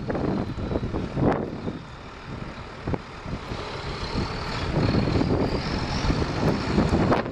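New Holland TG230 tractor's diesel engine running steadily, with a faint high whine over the rumble, and gusts of wind buffeting the microphone.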